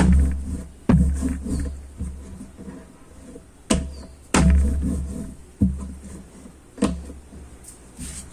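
Irregular heavy thuds about once a second, each with a deep boom that fades quickly: a rolling pin and board knocking on the counter as roti dough is rolled out.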